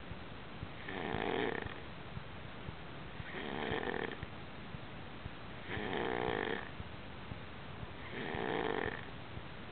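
Steady snoring: four snores in a regular rhythm, each under a second long and about two and a half seconds apart.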